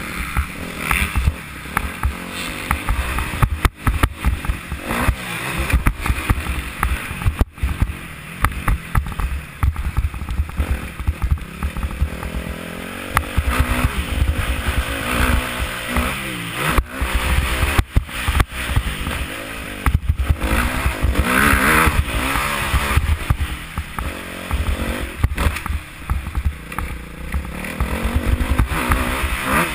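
Dirt bike engine revving up and down repeatedly as the bike accelerates and slows on a dirt track, heard from a helmet-mounted camera with heavy wind rumble on the microphone.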